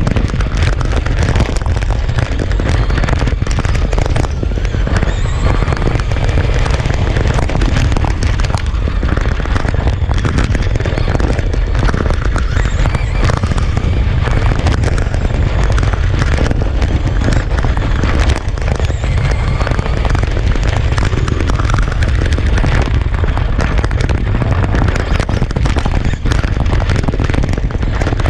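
Loud, continuous rumble and crackle of wind and road vibration on the microphone of a camera mounted on a radio-controlled Traxxas Slash short-course truck as it drives over rough asphalt.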